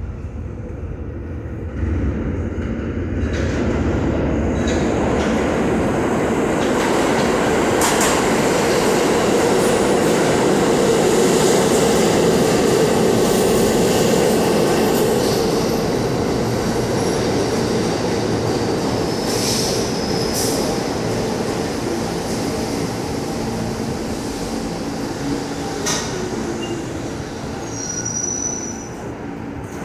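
New York City subway train pulling into an underground station. Its rumble on the rails builds as it enters, then eases off slowly as it brakes along the platform. A few sharp clacks are heard, and a short high squeal comes near the end as it comes to a stop.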